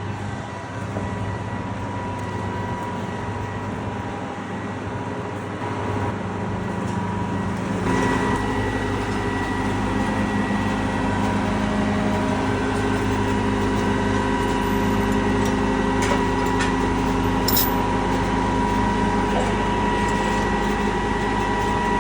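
Case IH combine's diesel engine running as the machine drives up onto a trailer, with a steady whine over the engine note. It gets louder and deeper about a third of the way in and holds there.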